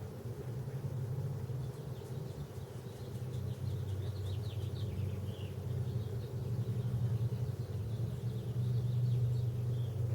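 Car engine idling with a steady low hum, while birds chirp now and then.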